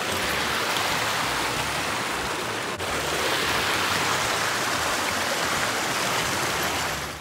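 Rocky mountain stream rushing over stones in small whitewater cascades, a steady loud rush of water. It drops away suddenly just before the end.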